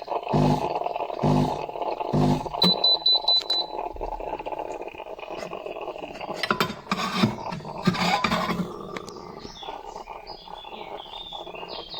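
Cecotec semi-automatic espresso machine running with a steady hum that pulses about once a second for the first few seconds. A short high beep comes about three seconds in, followed by a cluster of clicks and rattles.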